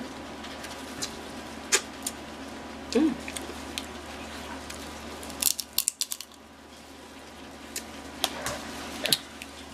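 Snow crab legs cracked and pulled apart by hand: scattered sharp shell cracks, with a quick run of several cracks about five and a half seconds in.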